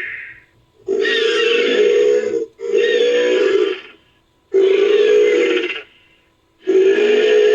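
Sound-designed call for Hatzegopteryx, a giant pterosaur: four loud, harsh cries, each about a second and a half long, in quick succession. The last one trails off at the end.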